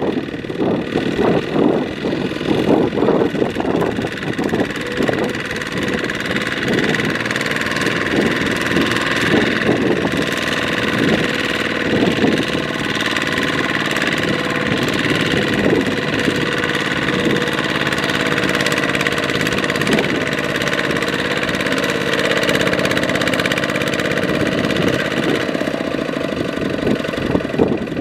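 Diesel engines running: a Kubota RT155 two-wheel walking tractor's single-cylinder diesel and a Kubota combine harvester close behind it, working to free the rice-loaded tractor stuck in deep mud.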